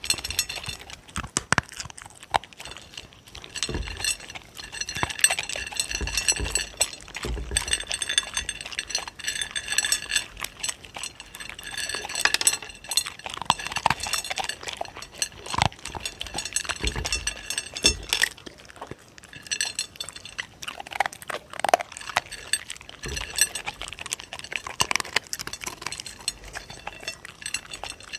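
Two dogs eating dry kibble from a plate close to a microphone: irregular crunching and chewing, with many sharp clinks of kibble and teeth against the plate.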